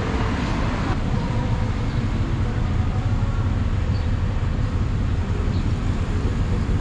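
Street traffic on a city avenue: cars and trucks running past in a steady low rumble.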